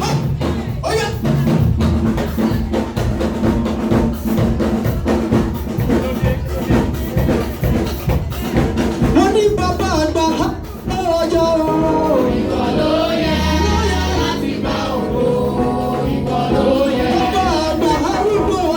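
Upbeat gospel dance music with a fast, driving drum beat; a pitched melody line comes in over the drums about eleven seconds in.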